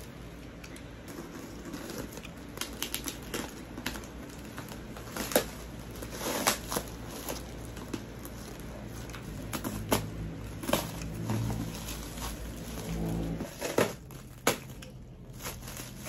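Plastic parcel wrapping crinkling and crackling as fingers pick and tug at it, with scattered sharp crackles and snaps. The wrap is hard to open by hand.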